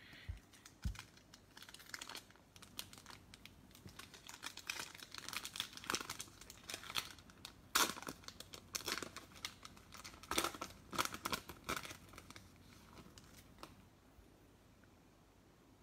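Foil wrappers of Chronicles Draft Picks football card packs crinkling and tearing as the packs are ripped open by hand: a long run of irregular crackles that dies away near the end.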